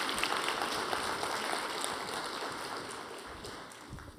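Audience applauding, a dense patter of clapping that dies away toward the end.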